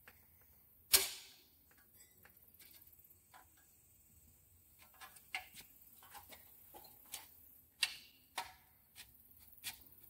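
Sharp metallic clicks and taps from a storm door's aluminium hinge and rod being worked by hand. One loud click with a short ring comes about a second in. A scatter of lighter clicks follows, with several louder ones near the end.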